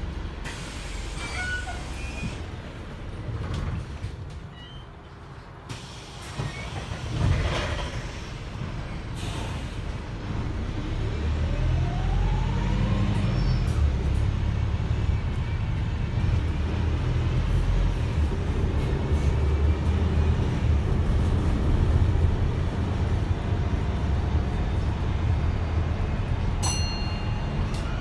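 Mercedes-Benz OM934 four-cylinder diesel of a Wright StreetLite single-deck bus, heard from inside the passenger saloon: a quieter spell, a short burst of air hiss about seven seconds in, then the engine rising and running louder under load as the bus pulls away and cruises.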